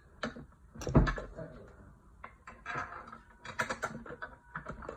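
Irregular light clicks and knocks of small parts and tools being handled and fitted during assembly, with one louder knock about a second in.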